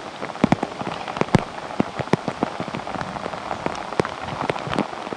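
Rain falling steadily on dense forest foliage, a continuous hiss broken by many sharp, irregular ticks of drops landing close by.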